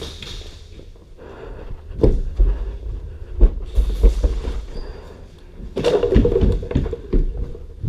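Irregular dull thumps and rustling from a player moving on foot with gear and a body-mounted camera, with a denser cluster of knocks about six seconds in.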